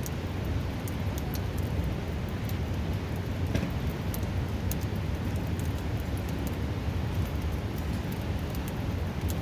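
Steady rushing of a fast river close by, with the light crackle and pops of a wood campfire over it; one louder pop about three and a half seconds in.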